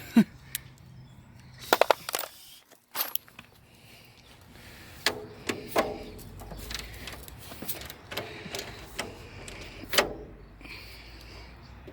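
Scattered metallic clinks and knocks of hand tools, sockets and bolts being handled while radiator mounting bolts are fitted. A brief ringing clink comes about two seconds in, with a sharp knock near ten seconds.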